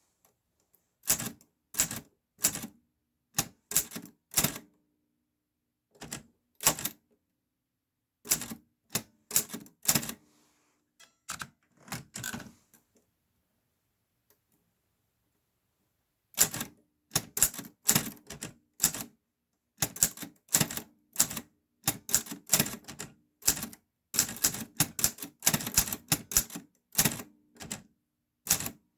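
Clover New Star 10S Hangul typewriter being typed on, its keys striking one at a time in short irregular runs. A pause of about three seconds comes midway, then a faster, denser run of keystrokes.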